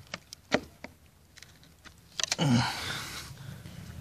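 Sharp clicks and knocks as pliers grip and twist a homemade dart lodged in a wooden target board, four in the first second and a quick cluster just after two seconds. This is followed by a short grunt falling in pitch and a rush of noise, as the dart is worked loose.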